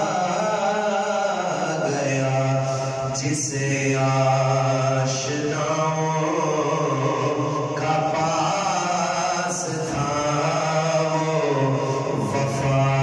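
A man sings an Urdu devotional poem (naat) unaccompanied into a microphone, holding long, wavering notes in phrases a second or two long, with short breaks between them.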